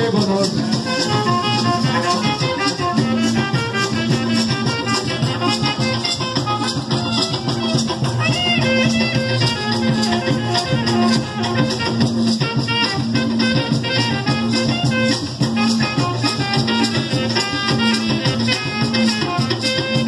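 Live carimbó band playing an instrumental passage between verses: maracas shaking in a fast, steady rhythm over hand drums, with a melody line of short notes on top.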